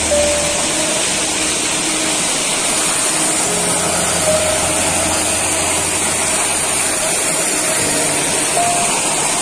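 Paddlewheel aerator in a tarpaulin shrimp pond running steadily, its motor humming under the constant splashing and rush of water from the churning paddles as it oxygenates the water.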